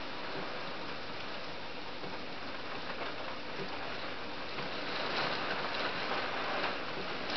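Heavy rain falling steadily, heard from indoors through a leaded-glass window, growing a little louder about five seconds in.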